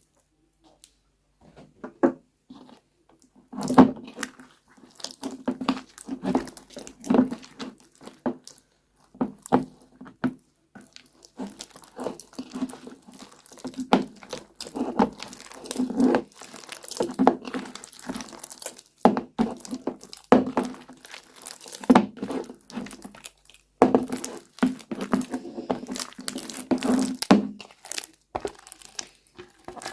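Slime being squished and worked by hand, giving irregular, crowded crackling and crunching sounds.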